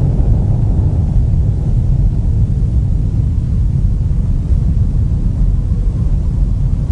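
A nuclear explosion's loud, steady low rumble that goes on without a break.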